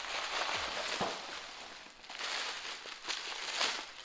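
Tissue paper rustling and crinkling as it is pulled out of a gift bag and unwrapped, in several bursts with short pauses between them.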